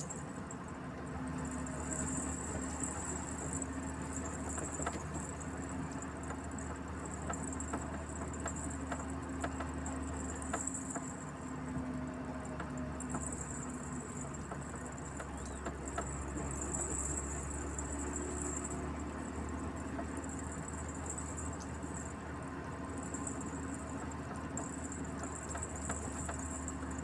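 Truck engine running steadily while driving, heard from inside the cab as a low drone with light rattles now and then. A high buzzing swells and fades every few seconds over it.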